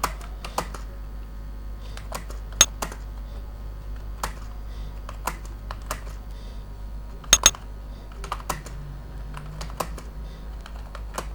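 Computer keyboard keys pressed one at a time at an uneven, unhurried pace, with a louder double keystroke about halfway through, over a low steady hum.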